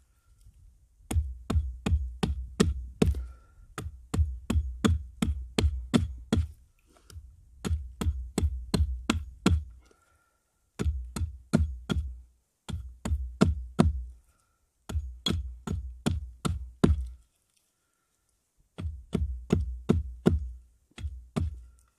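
Hatchet repeatedly striking an upright wooden stick braced on a log: quick, even knocks about five a second, each with a dull thud, in runs of two to three seconds with short pauses between them.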